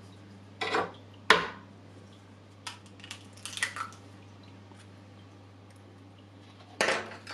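A hen's egg being cracked open and emptied into a bowl of flour: a sharp knock about a second in, then scattered light clicks, and a short rustle near the end.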